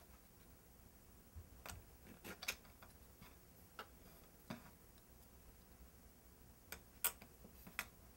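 Scattered faint, irregular clicks and taps of a clay blade and fingers on a work tile while a small piece of raw polymer clay is trimmed.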